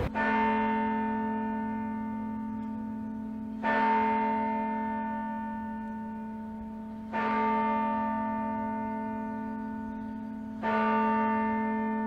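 A large church bell tolling slowly: four strokes on the same note, about three and a half seconds apart, each struck hard and then ringing on and fading, with a low hum that carries through between strokes.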